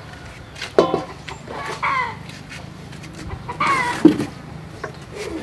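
Chickens clucking: three short calls, each falling in pitch.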